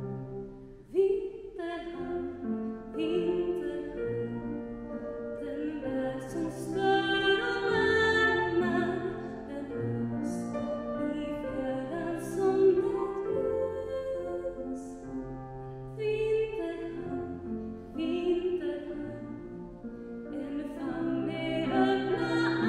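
A woman singing a slow solo song, holding long notes over sustained low accompaniment notes that change every couple of seconds.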